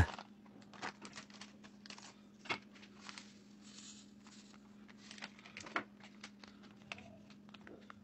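Faint crinkling and crackling of a plastic bag of powdered laundry detergent being handled, in scattered small clicks. About halfway through there is a soft hiss as the powder is poured into a plastic tub.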